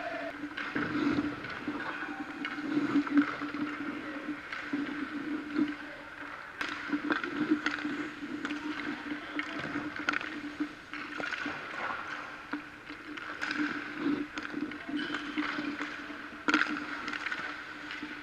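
Ice skates scraping and carving on rink ice, with a few sharp clacks of stick or puck on the ice, over a steady hum.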